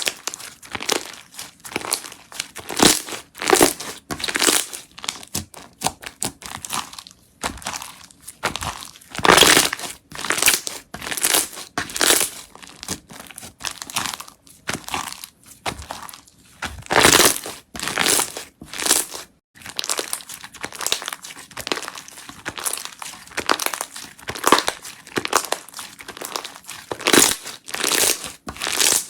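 Slime being squeezed, stretched and poked by hand, giving an irregular run of short crackling and squishing sounds.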